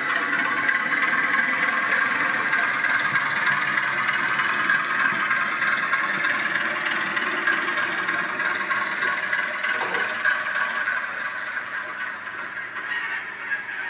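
H0-scale model train running on the layout: a steady rattle and hiss of motor and wheels on the track, with a click about ten seconds in, fading over the last few seconds as the locomotive runs away.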